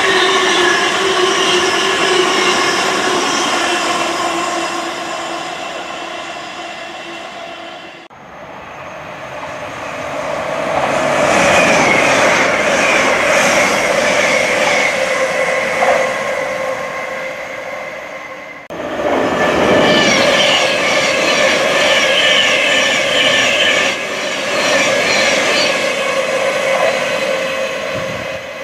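High-speed trains passing one after another. First an LNER Azuma's rushing noise and whine fades away. After a sudden cut, a Hull Trains Class 802 approaches, rushes past with its whine falling in pitch, and dies away. After another cut, a Thameslink Class 700 electric unit runs in.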